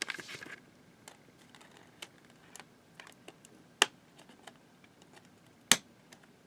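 Small clicks and taps of DVDs and a plastic DVD case being handled, with a brief rustle at the start. Two sharper, louder clicks come about four and six seconds in as a disc is pressed free of the case's centre hub.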